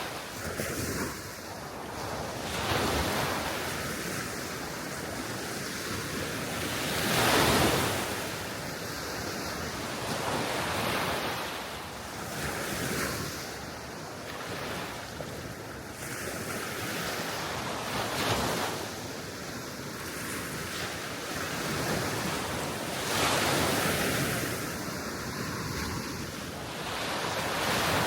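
Gentle Baltic Sea waves washing onto the shore, a rushing surge every four to five seconds, the biggest about a quarter of the way in, with wind blowing over the microphone.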